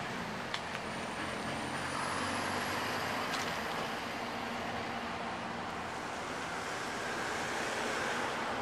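Steady outdoor traffic noise, a constant wash of road rumble, with a couple of faint clicks about half a second in and another about three seconds in. No cat calls are heard.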